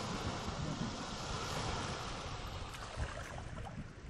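Steady rushing background noise with a low rumble underneath.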